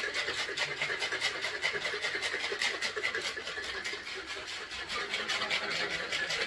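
Ice rattling inside a stainless steel cocktail shaker being shaken in a quick, even rhythm of about six strokes a second.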